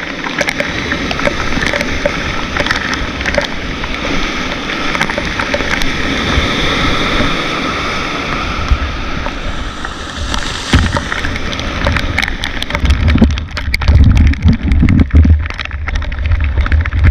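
Rushing white water of a steep mountain river around a canoe, with scattered sharp knocks. About three-quarters of the way through, loud low thumps take over as the loudest sound.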